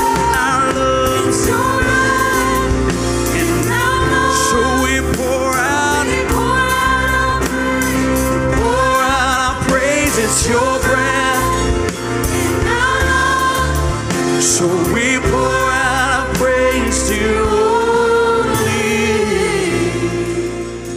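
Gospel worship song: several voices sing a slow melody over a band's sustained chords and bass.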